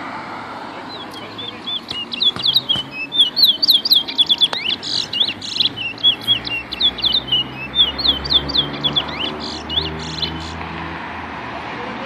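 A caged black songbird singing a long, fast run of sharp chirping notes, several a second. The song starts about a second in and stops near the end.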